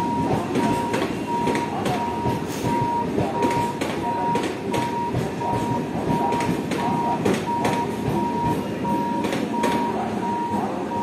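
An EMU suburban electric train running past, with a steady rumble and sharp clacks of its wheels over the rail joints. Through it a high electronic warning beep repeats about twice a second and stops near the end.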